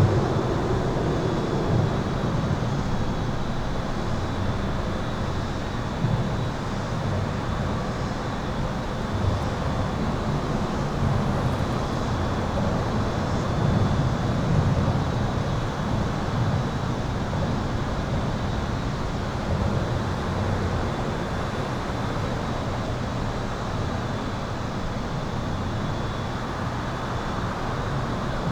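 Continuous highway traffic rumble heard from under an overpass, deep and steady, swelling slightly now and then as vehicles pass overhead. A thin, steady, high electrical hum sits above it.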